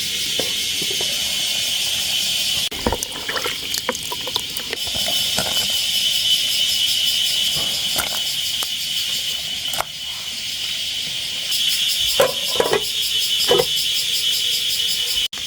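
Insects chirring in a steady, high-pitched forest chorus, with a fast pulsing texture. A few scattered clicks and snaps sound over it, several close together near the end.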